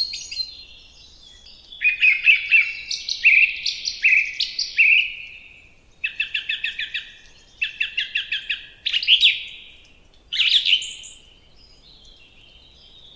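Songbird singing short phrases of quick, repeated chirping notes, some run together into rapid trills, with brief pauses between phrases.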